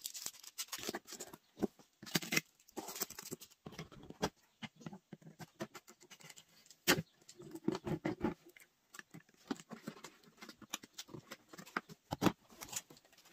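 Scissors cutting and scraping along packing tape on a cardboard box, with irregular clicks, scrapes and rustles of the cardboard being handled.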